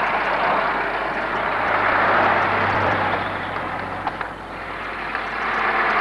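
Jeep engine running as it drives along a forest track. The noise dips about four seconds in and swells again near the end.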